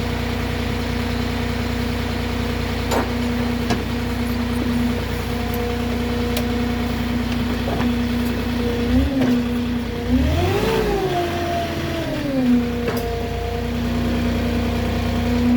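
Moffett truck-mounted forklift running with a steady engine hum, revving up and falling back about ten seconds in as it works. A few short clicks or knocks along the way.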